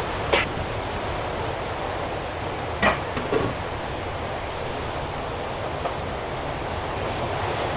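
Steady rushing hiss of a pot of water boiling hard on a gas stove, with two sharp knocks of the stainless steel steamer pans being handled, one just after the start and a louder one about three seconds in.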